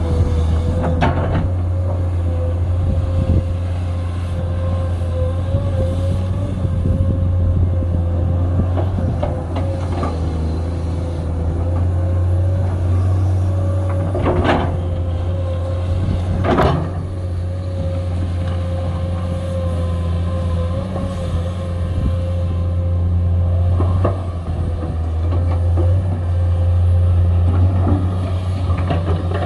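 Komatsu 210 excavator's diesel engine running steadily under working load, with a steady whine above the engine drone. A few sharp knocks break in, the loudest about 14 and 16 seconds in.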